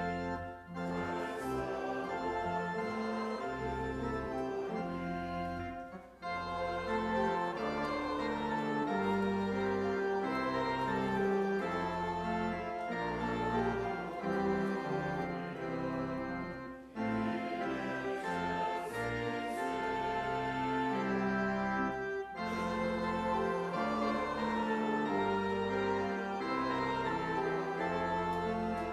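Church organ playing a slow hymn-like piece of sustained chords, with short breaks between phrases about 1, 6, 17 and 22 seconds in.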